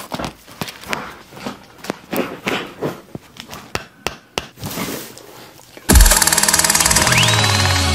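A run of irregular sharp clicks and knocks, then loud electronic music with a deep bass starts suddenly about six seconds in, with a rising sweep soon after.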